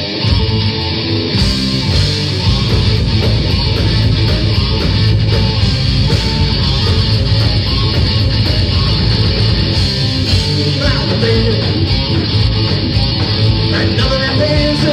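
Live rock band playing loud, with electric guitar and a drum kit.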